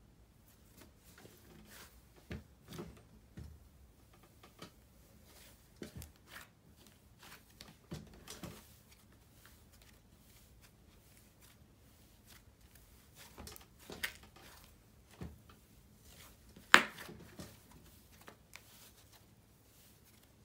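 White textured slime being stretched, folded and squeezed by hand, giving irregular soft clicks, crackles and pops, with one sharper pop near the end.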